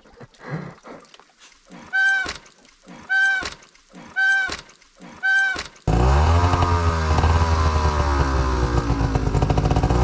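Four evenly spaced honking tones, about a second apart. Then loud, heavy rock music with distorted guitars and a strong bass line starts suddenly about six seconds in.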